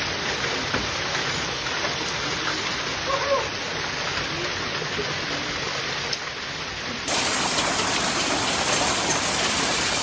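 Heavy rain mixed with hail pouring down, a steady dense hiss of water and ice hitting the ground. About seven seconds in it jumps louder and brighter.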